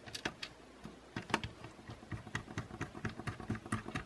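Rapid, irregular small clicks and taps from a precision screwdriver driving the small screws into the plastic bottom shell of a DJI Mavic Air 2, with hands handling the drone body.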